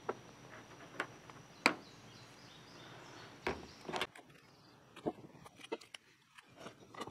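Scattered light clicks and taps of small parts being handled on a truck's sheet-metal cab roof, with one sharper knock about a second and a half in.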